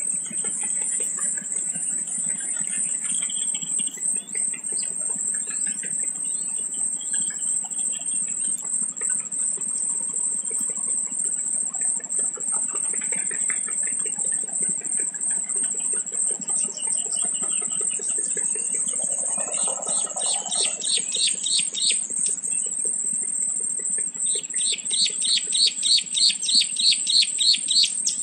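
Outdoor birdsong over a steady, high-pitched insect drone, with scattered short chirps and then, for the last few seconds, a fast run of repeated chirps at several per second.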